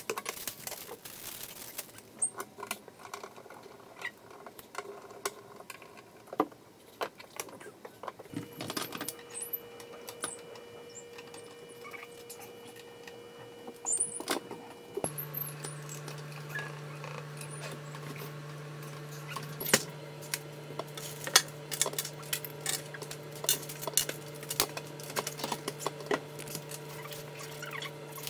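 Scattered light clicks, taps and rattles of hand tools and wood trim being handled, over a steady low hum that starts abruptly about halfway through.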